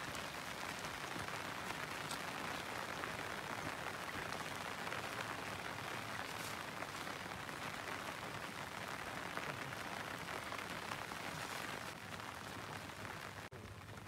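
Light drizzle falling steadily, an even hiss of rain, a little quieter for the last couple of seconds.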